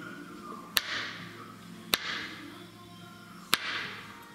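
Kitchen knife chopping mushrooms on a wooden cutting board: three sharp knocks of the blade on the board, about one every second and a half, each followed by a brief hiss, with music underneath.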